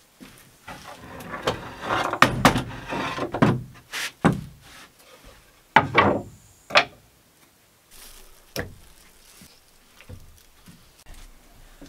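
Ferro rod scraped with a knife over wood shavings on a log stump, a dense rasping for about three seconds. Then a wooden cutting board and a knife are set down on a wooden plank table with a few sharp wooden knocks.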